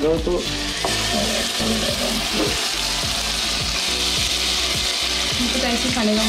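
Marinated chicken pieces sizzling in hot butter as they go into the pan. The sizzle builds about half a second in and holds steady, with scattered light clicks.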